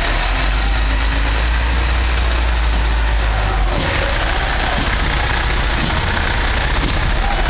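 Diesel engine of a heavy military tractor-trailer running steadily as the truck rolls past close by, a constant low rumble.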